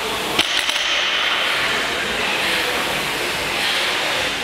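A loaded barbell is set down on the gym floor between deadlift reps: one sharp clank of the weight plates about half a second in, with a brief rattle after it. Steady background noise continues throughout.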